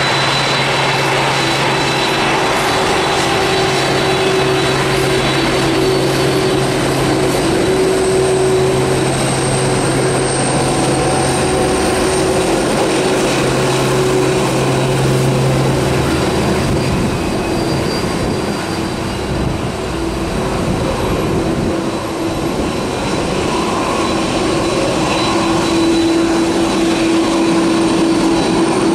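Boeing 767 turbofan engines running at taxi power: a steady jet whine over a low rumble as the airliner rolls and turns on the runway. The engine note shifts about two-thirds of the way through as the low hum drops away and a mid-pitched tone grows stronger.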